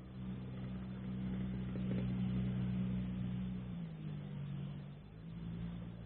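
An engine running steadily with a low hum, its pitch stepping down about four seconds in and partly back up a second later.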